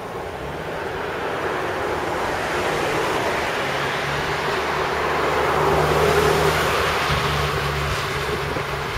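Wind rushing over the microphone of a bicycle-mounted camera on a fast downhill descent, with rumble from the tyres and road underneath. It grows louder over the first six seconds or so as speed builds, then eases slightly near the end.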